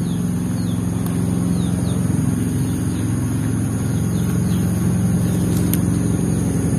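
A steady low engine hum from a running motor, with short high bird chirps now and then.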